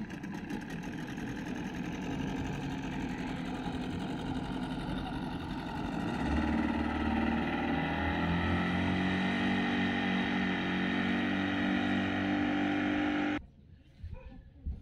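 Outboard motor of a small open boat running as it passes close by, growing louder about six seconds in; the sound cuts off suddenly near the end.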